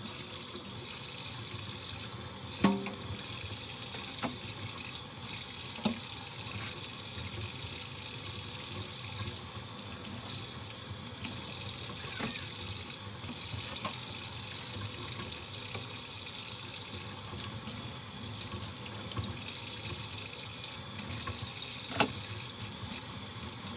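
Kitchen tap running steadily into a sink while dishes are washed by hand, with a few sharp clinks of dishes against each other, the loudest about three seconds in and near the end.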